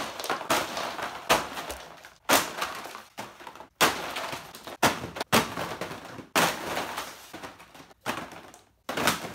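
Action figures in plastic blister-pack cards being dropped onto a heap of loose plastic figures and packages, batch after batch. It is a run of about nine sudden clattering crashes of plastic and card, each rattling away before the next.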